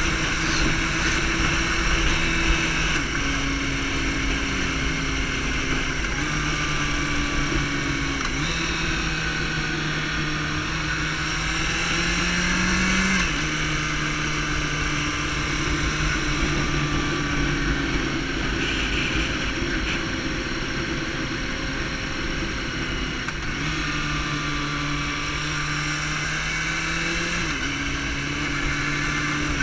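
Sport motorcycle engine running while riding at speed. Its pitch climbs slowly and then steps down or jumps several times with gear changes and throttle, over a steady low rush of wind.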